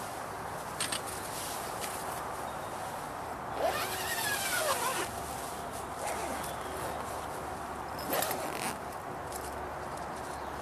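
The door zip of a pop-up camouflage ground hide being pulled shut from inside, one long pull of about a second and a half roughly four seconds in. Brief rustles of the hide fabric come about a second in and again near the end, over a steady background hiss.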